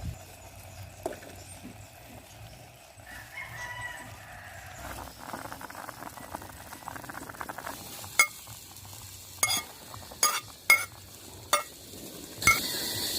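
A stretch of soft scraping, then about six sharp clinks with a brief ring, spaced irregularly over a few seconds. A steady high hiss starts near the end.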